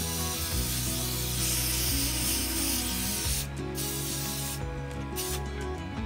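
Compressed-air blow gun hissing as it blows out the inside of a turned wooden bowl: one long blast, then a few short bursts after about three and a half seconds. Background music plays underneath.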